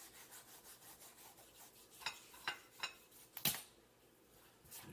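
Knife cutting and trimming swordfish on a cutting board: a run of faint rasping strokes, then four sharp clicks, the loudest about three and a half seconds in.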